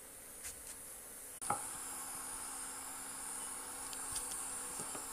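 Steady high-pitched background hiss with a low hum, cut off abruptly by an edit about one and a half seconds in. A few faint clicks follow from a wooden rolling pin rolling dough on a kitchen counter.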